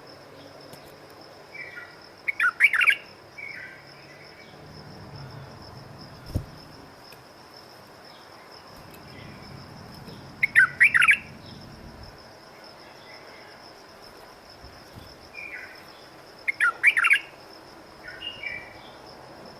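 A bulbul singing three short bursts of quick, loud warbled notes, about seven seconds apart, each framed by a few softer notes.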